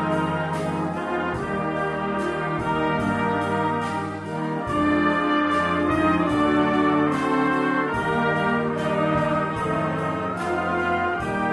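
Brass band music, with trumpets and trombones playing a chordal tune in held notes over a steady bass line.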